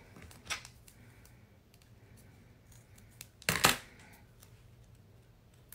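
Scissors cutting a strip of foam tape in half: a small click about half a second in, then two sharp snips in quick succession about three and a half seconds in.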